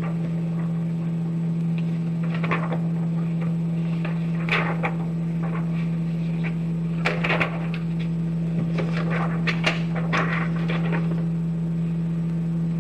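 Steady hum of a running overhead projector, while transparency sheets are handled and laid on its glass: a handful of rustles and light knocks about two and a half, four and a half, seven, and nine to ten seconds in.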